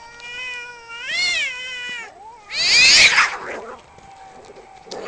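Two cats caterwauling in a standoff: one long, drawn-out yowl that swoops up in pitch about a second in, then a loud, harsh screech a little before three seconds in as they clash into a fight.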